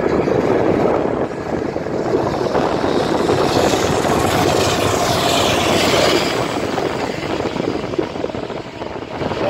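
Diesel freight locomotive working hard under load, its engine throbbing steadily, with a higher whine rising and falling around the middle.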